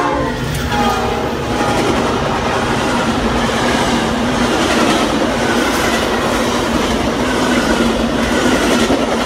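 A Metra express commuter train with double-deck stainless-steel cars passing close at speed, the tail of its horn fading in the first second. Then a loud, steady rush of wheels and clattering cars over the rails, with a low steady hum beneath.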